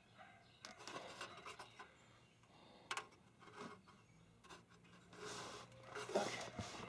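Faint rubbing and scraping of hands working parts on an engine block, with a few small clicks and one sharper click about three seconds in.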